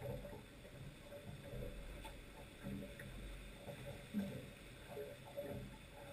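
Small waves lapping and slapping against the hull of a small boat at anchor, in irregular soft knocks over a low rumble.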